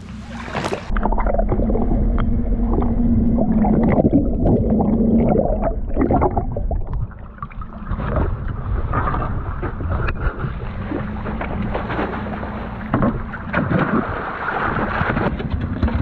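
Outboard motor running with a steady low hum, under wind noise on the microphone, water slapping against the hull and scattered knocks as a tuna is brought alongside and hauled aboard.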